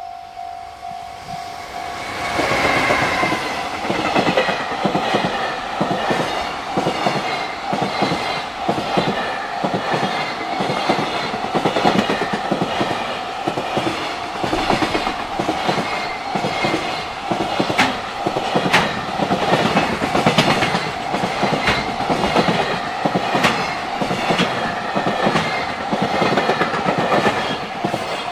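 An EF210 electric locomotive reaches the microphone about two seconds in, followed by a long freight train of container wagons. Its wheels clatter over the rail joints in a steady rhythm. A level-crossing warning bell keeps ringing on one steady tone throughout.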